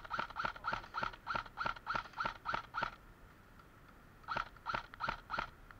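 Airsoft rifle firing a rapid string of semi-automatic shots, about three a second, each a short sharp crack with a ringing tone; about ten shots, a pause of over a second, then four more near the end.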